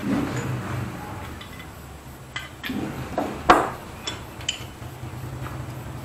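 Steel hand tools clinking and knocking as they are handled, a socket and a long bar among them: several separate clinks, the loudest about three and a half seconds in, over a steady low hum.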